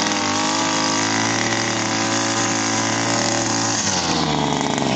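Two-stroke gasoline brush cutter running steadily at cutting speed, its nylon line head whipping through grass and weeds. The engine note shifts about four seconds in.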